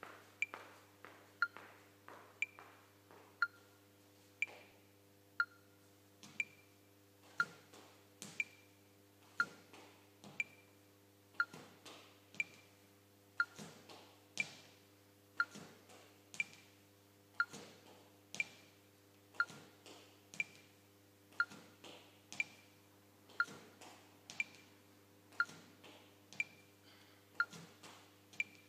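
A steady tick-tock, one sharp tick about every second, alternating between a higher and a lower pitch, over a faint steady hum.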